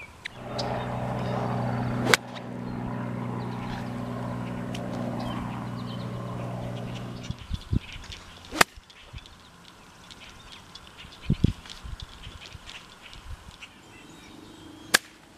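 A small engine runs steadily for about the first seven seconds, with a sharp click about two seconds in, then stops suddenly. About a second later comes the sharp crack of a hickory-shafted iron striking a golf ball, and another sharp click near the end.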